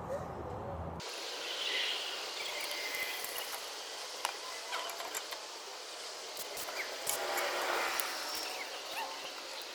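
Outdoor background noise with birds chirping now and then and a few scattered sharp clicks.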